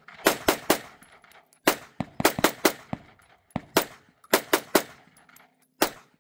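Guns firing in rapid strings: more than a dozen sharp shots in quick clusters of two to four, with short pauses between the clusters and a brief echo after each shot.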